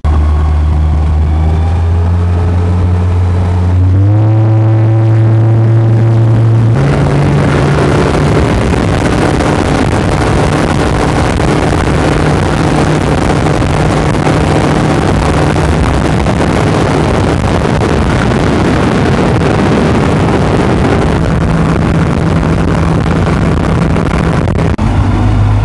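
A small boat's outboard motor runs under way with the throttle opened in two steps, about 4 and 7 seconds in, with a steady rushing hiss of water and wind. It is eased back again near the end.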